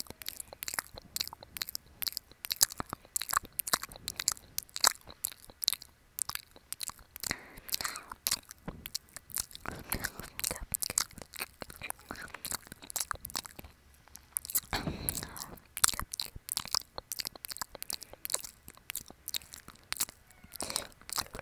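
Close-miked ASMR mouth sounds: wet clicks and smacks coming several a second. There is a fuller, louder passage about two-thirds of the way through.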